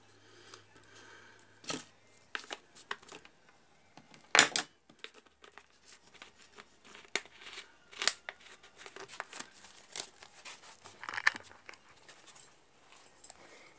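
Thin plastic PET bottle being handled, crinkling and clicking irregularly as its cap is worked and the bottle is turned, with one loud crackle about four seconds in.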